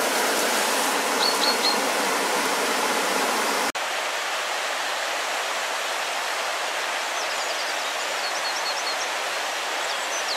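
Steady rushing noise like falling water, with a few high bird chirps about a second in. A sudden cut about four seconds in gives way to a slightly quieter rushing with small birds chirping repeatedly near the end.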